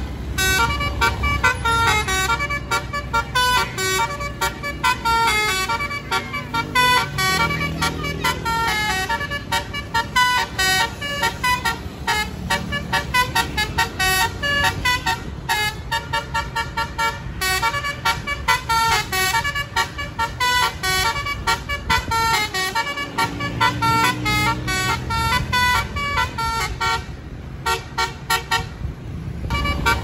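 Tour bus's basuri musical air horn ("telolet") playing a fast melody of short stepped notes almost without pause, with a few deeper held notes mixed in.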